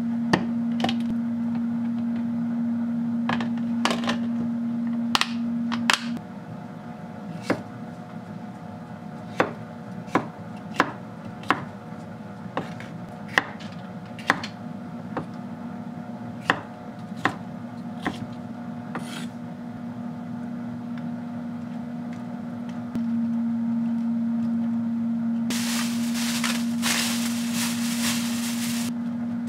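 Chef's knife slicing bell peppers on a wooden cutting board: sharp knocks at an uneven pace, about fifteen over the first twenty seconds. Then a plastic bag crinkles for a few seconds near the end, over a steady low hum.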